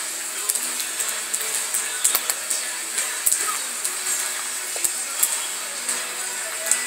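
Pork rinds deep-frying in hot oil in a cast iron kettle: a steady sizzle with frequent sharp, irregular pops and crackles.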